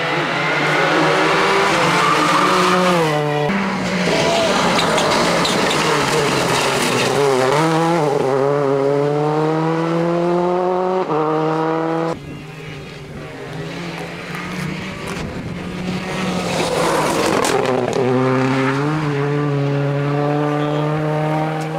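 Rally cars at full throttle on a special stage, engines climbing in pitch and dropping back at each gear change. The sound switches abruptly to another car about 3.5 s and 12 s in.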